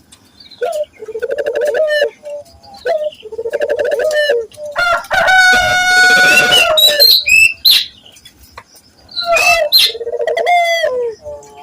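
Local puter doves (Barbary doves) cooing: repeated rolling, pulsing coos, one after another with short gaps. About five seconds in comes a louder, drawn-out call at one steady pitch lasting about two seconds.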